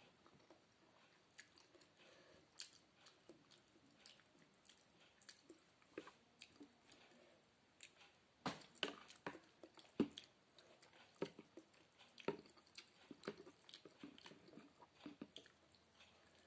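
Close-up chewing of a spaghetti-noodle sopas (noodle soup), with many short wet smacks and clicks that grow louder and more frequent about halfway through.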